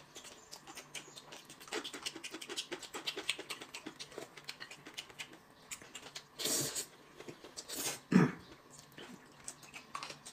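Someone eating close to the microphone: chewing and lip smacks heard as many small clicks, with two louder breathy sounds about six and a half and eight seconds in.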